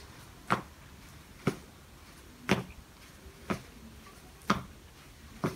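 Hands clapping in a slow, steady rhythm, about once a second, six claps in all.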